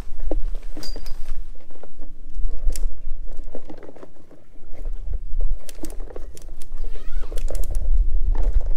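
Wind rumbling on the microphone, with nylon tent fabric rustling and light clicks from the tent poles as a dome tent is handled and raised.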